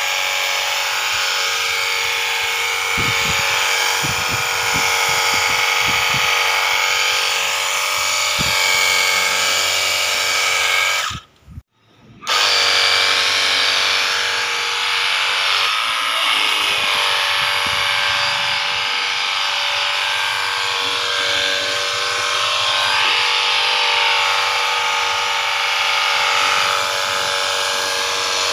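Small battery-powered high-pressure washer running, its electric pump motor giving a steady whine over the hiss of the water jet. It stops for about a second roughly eleven seconds in, then starts again.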